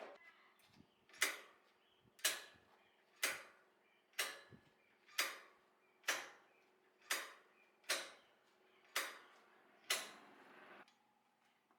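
Sharp knocks or taps, evenly paced at about one a second, each ringing briefly and dying away, over a faint steady hum.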